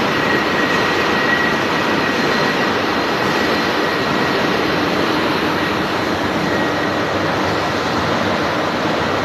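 Grinder running against the inside of a large 800 mm bore on a workpiece turning in a lathe: a steady grinding hiss with a constant high whine.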